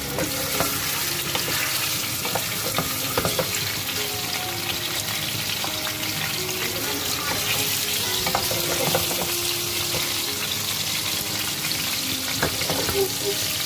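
Raw chicken pieces sizzling in hot oil in a metal karahi on high heat, the steady hiss of searing meant to keep the chicken from releasing its water. A spatula stirs and turns the pieces, with occasional clicks and scrapes against the pan.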